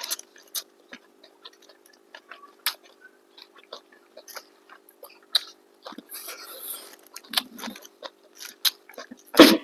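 Close-up eating sounds: scattered wet clicks and smacks of chewing, over a steady low hum. A sudden loud burst comes near the end.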